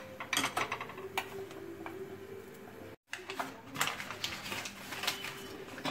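Steel spoon scraping and tapping against the inside of a steel pot as custard-thickened milk is stirred on the stove, in scattered light clicks. The sound cuts out for a moment about halfway.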